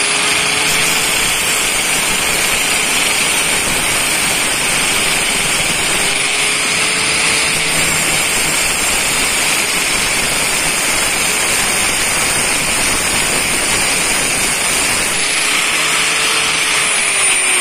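Angle grinder cutting through the thick steel canister of a used Mahle diesel fuel filter, running steadily with a high whine and a harsh grinding hiss. The whine sags slightly in the last couple of seconds and the sound stops abruptly at the very end.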